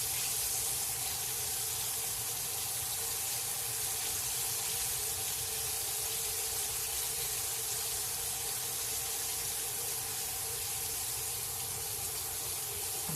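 Fish fillets frying in hot peanut oil in a cast iron pan, a steady, even sizzle, with a faint steady hum underneath.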